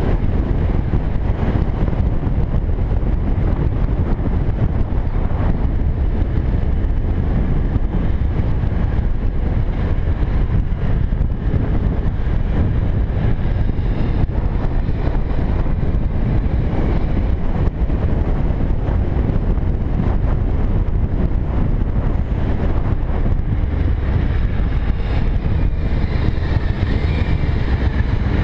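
Cruiser motorcycle running at road speed: a steady engine drone under heavy wind rush on the microphone.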